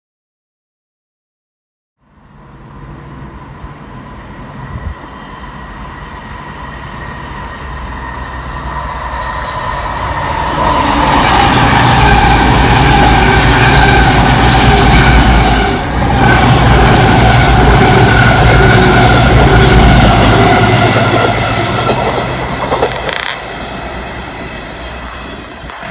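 Virgin Class 221 Voyager diesel-electric multiple unit passing through a station. Its underfloor diesel engines hum with steady tones, growing louder as it approaches, loud as it runs past, then fading as it draws away.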